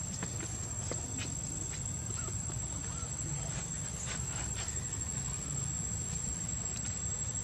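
Steady high-pitched insect drone, with a few faint light clicks and rustles over a low rumble.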